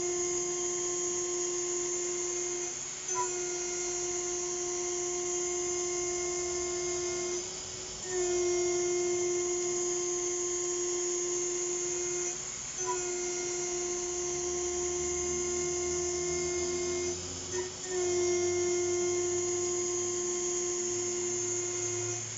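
6040 CNC router spindle milling aluminium: a steady high-pitched whine with a ringing overtone. It dips briefly about every five seconds, four times.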